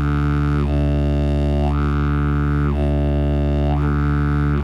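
Didgeridoo drone held steady. Its tone turns brighter and duller in turn about once a second as the player switches between open and closed cheeks. The drone stops at the end.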